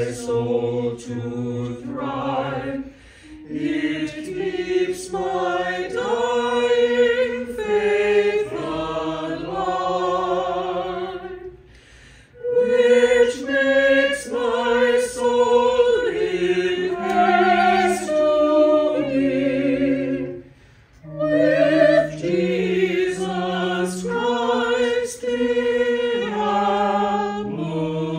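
Church choir singing in parts, several voices holding notes in harmony through slow phrases, with two short breaks between phrases about twelve and twenty seconds in.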